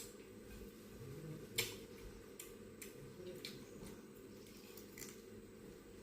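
Close-up eating sounds: soft chewing with a few sharp, scattered mouth clicks and smacks.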